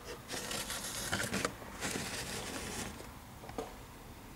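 Handling noise from a plastic model building being moved and turned on a cutting mat: two spells of scraping and rustling, about a second each, followed by a couple of light clicks.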